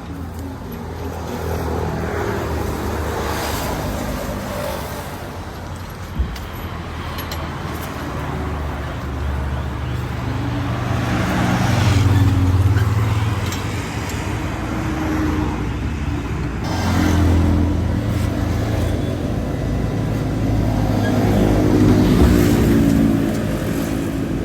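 Street traffic: a steady engine hum with vehicles passing one after another, each swelling and fading, and a single sharp click about six seconds in.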